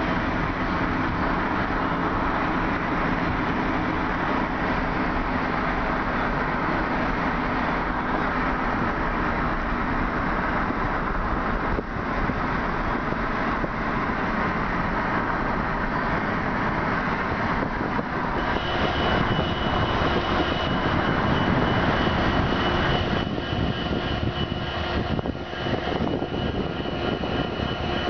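Freight train rolling past: a steady rumble and clatter of the cars on the rails. About two-thirds of the way through the sound changes to the steady drone of diesel locomotives running, with a steady high-pitched whine over it.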